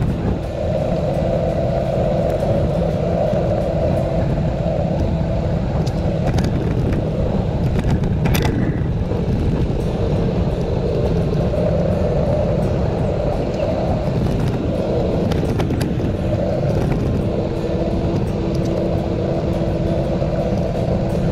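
Wind rushing over the microphone and rolling noise from a ride along a paved path, with a steady hum that fades in and out. There is a sharp click about eight seconds in.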